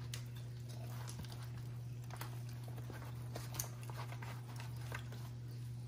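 Hands pulling meat off a rotisserie chicken in a plastic tray: faint, scattered wet tearing and small clicks over a steady low hum.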